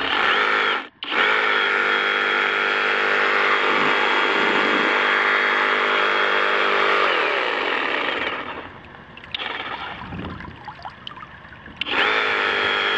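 Flex FX2271 24-volt brushless cordless reciprocating saw running with its nose churning in water: a steady high motor whine that cuts out briefly about a second in, runs again, winds down in pitch and stops at around eight seconds, then starts up again near the end. The owner puts the stopping down to the water's resistance against the blade clamp.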